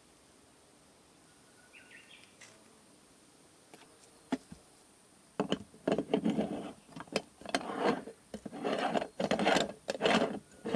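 Irregular rustling and shuffling handling noises, in a string of short bursts over the last five seconds, after a quiet start.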